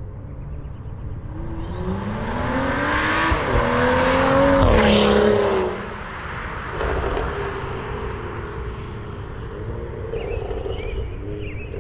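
BMW F30 335i's turbocharged inline-six with a catless 3.5-inch downpipe, accelerating hard past: the engine note climbs in pitch for a few seconds, then dips in pitch as the car goes by and drops off sharply at about six seconds in. A quieter, lower engine sound continues as the car moves away.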